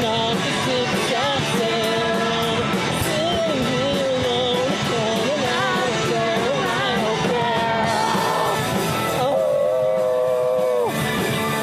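Rock band playing live, with a singer over guitars and drums. Near the end the top end drops out for a moment under a long held note.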